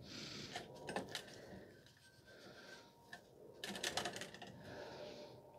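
Faint handling noise of the removed rear shock absorbers: scattered light clicks and rustling, with a quick run of small clicks about four seconds in.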